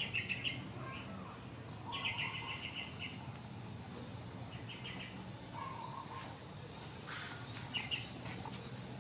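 Small birds chirping: a few short, rapid trills and, in the second half, a run of quick rising chirps, over a low steady background hum.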